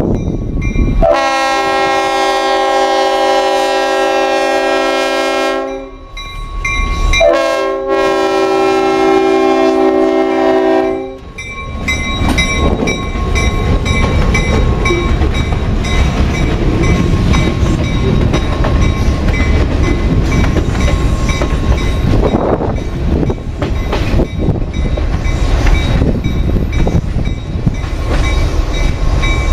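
A locomotive's Leslie RS-5T five-chime air horn sounds two long blasts for a grade crossing, each a chord of about four to five seconds. Then the freight train rolls past, its boxcars rumbling and clattering over the rails.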